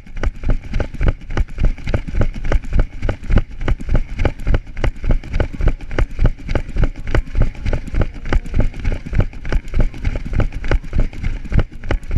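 A runner's footfalls on asphalt at a fast race pace, an even beat of about three strides a second, heard through a body-worn camera that jolts with each step.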